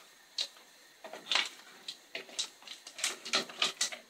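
A spoon stirring in a stainless-steel saucepan with stones in it, giving a series of short scrapes and knocks against the pan and the stones, more of them close together near the end.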